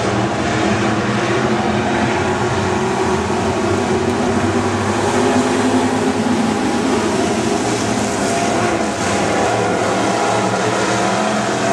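A field of dirt-track stock cars running together around the oval, their engines blending into one loud, steady drone.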